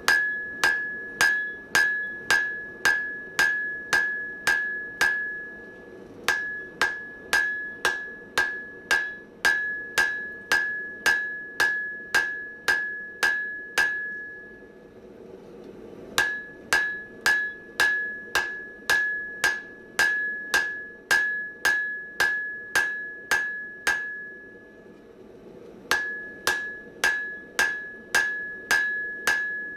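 Hand hammer striking hot mild steel on an anvil, drawing the bar out, in steady blows about two a second, each followed by a clear ringing tone from the anvil. The hammering stops briefly twice, about halfway through and again near the end, then picks up again.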